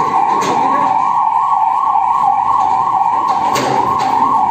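Ambulance siren sounding in a fast, steady warble that rises and falls several times a second.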